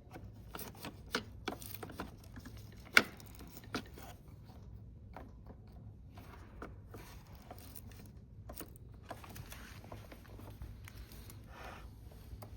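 Scattered sharp clicks and light knocks from handling, the loudest about three seconds in, with quieter rustling later and a faint low hum underneath. No motor is running.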